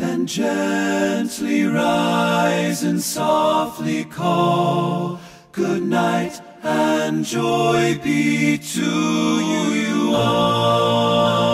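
Background music of voices singing together in sustained harmony.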